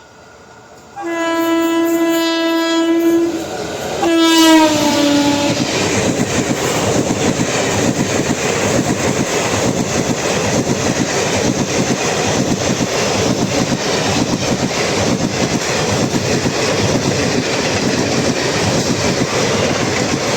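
Teesta Torsa Express sounding its horn in two blasts, the second dropping in pitch as the train passes at high speed, followed by the continuous rush and rapid clatter of its coaches' wheels on the rails.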